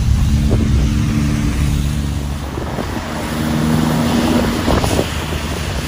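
Truck engine running in a steady low drone while driving on a rain-soaked road, with a hiss of tyres and rain over it.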